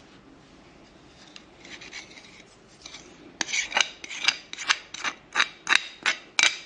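A kitchen utensil scraping in quick, even rasping strokes, about three a second. It starts faintly and turns loud a little over three seconds in.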